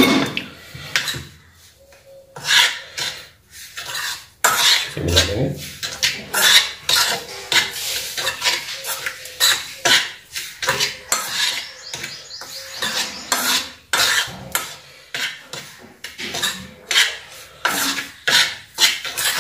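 A steel spoon stirring and scraping a dry roasted flour mixture in a metal pan, mixing in sugar, with repeated scraping strokes against the pan.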